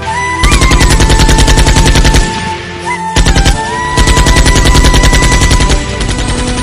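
Rapid machine-gun fire sounds in three runs: a long one starting about half a second in, a short one around three seconds, and another long one from about four seconds. A steady high tone runs under them.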